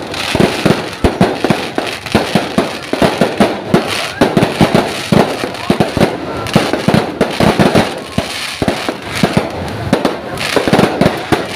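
Fireworks going off in rapid succession: a dense, unbroken run of sharp bangs and crackles, several a second.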